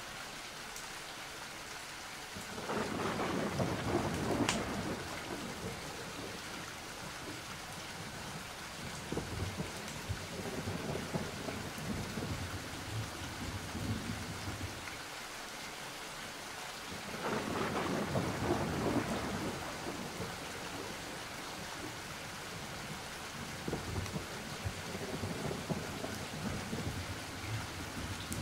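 Steady rain with two long rolls of thunder, the first starting about two and a half seconds in with a sharp crack near its peak, the second about seventeen seconds in.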